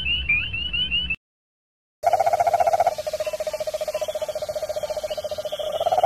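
Spring peepers calling in chorus, a run of high rising peeps, cut off abruptly about a second in. After a short silence, a giant toad (cane toad) gives a long, steady, fast-pulsed low trill.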